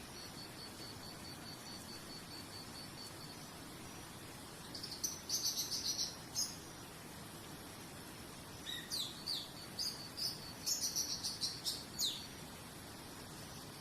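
Songbirds singing in two spells of quick high chirps and downward-sweeping notes over a steady faint hiss. For the first few seconds an insect chirps in an even, high pulse, about four or five times a second.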